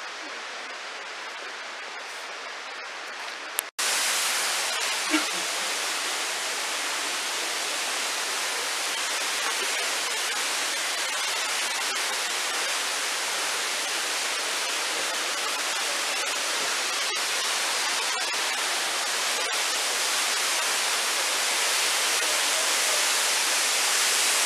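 Steady rushing of a nearby waterfall. It breaks off for an instant about four seconds in, then carries on louder and swells a little towards the end.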